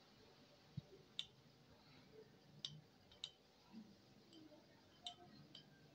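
A few faint, short plastic clicks and a soft tap as a bike computer's wheel-speed sensor and its small spoke magnet are handled. The magnet is being passed by the sensor to test the speed reading.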